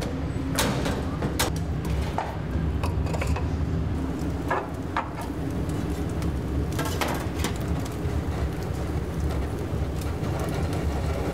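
Steady low rumble with scattered sharp clicks and knocks, a cluster of them about seven seconds in, at a wood-fired cağ kebab grill with a hand-turned metal skewer wheel.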